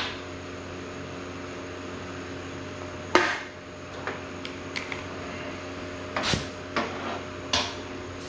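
Scattered sharp metallic clicks and clanks, the loudest about three seconds in and a cluster in the second half, as brass air-hose fittings and tools are handled on a workbench, over a steady low hum.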